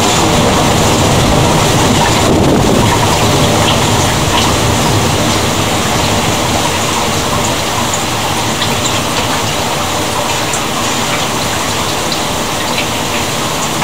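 Steady rain pouring during a night thunderstorm, with scattered drops ticking close by.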